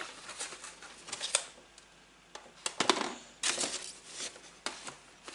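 Paper sheets rustling as they are handled over a cardboard box, with scattered light clicks and taps and a few short louder rustles about a third of the way in and just past the middle.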